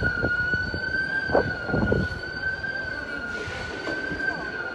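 A continuous high-pitched alarm tone, held steady with only a slight waver in pitch, over low street rumble and a few knocks in the first two seconds.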